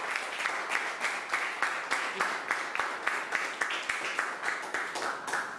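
Audience applauding, many individual hand claps in a steady patter.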